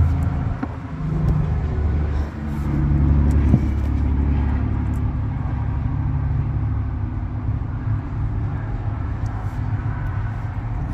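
Steady low engine rumble, as of an idling diesel truck, with a few faint clicks from handling.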